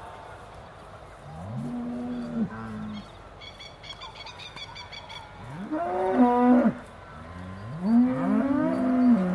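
Aussie Red dairy cows mooing: three calls, about two, six and eight seconds in, each rising in pitch and then held. The last two calls are louder and longer.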